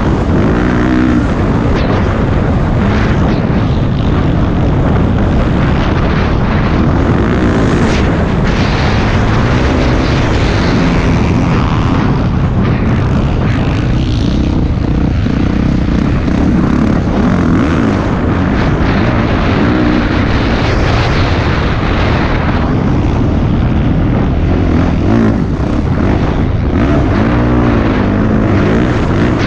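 Yamaha YZ450F four-stroke dirt bike engine running hard and being ridden, its pitch rising and falling as the throttle is opened and closed, with a constant rushing noise behind it.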